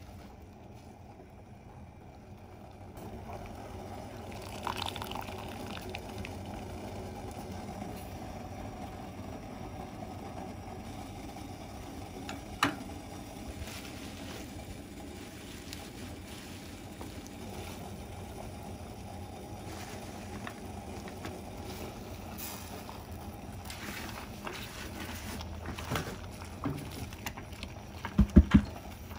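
Pot of amaranth greens boiling with a steady rushing sound. There is a sharp click about twelve seconds in and a few knocks near the end.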